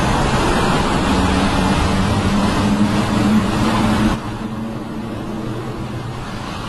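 Car engine and road noise heard from inside the cabin while driving through a road tunnel, a steady hum under a loud rush. The noise drops abruptly about four seconds in and carries on quieter.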